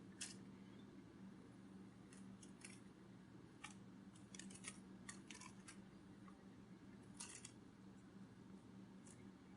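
Near silence over a steady low hum, broken by faint, irregular sharp clicks, some coming in quick clusters of two or three.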